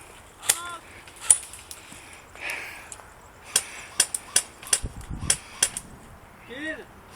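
Airsoft guns firing single shots: a dozen or so sharp cracks, a few spaced early on and then several in quick succession from about three and a half to six seconds in. There is a short low rumble midway, and brief voices at the start and near the end.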